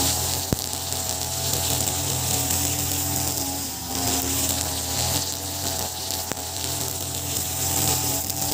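Ogawa BG330 33cc two-stroke brush cutter running, its 2.4 mm square nylon trimmer line whirring through grass. The engine pitch wavers up and down as the head is swung side to side. Two sharp ticks come through, one near the start and one about six seconds in.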